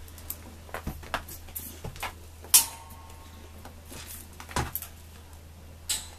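Scattered knocks and clicks in a small room, with one loud clank about two and a half seconds in that rings on briefly.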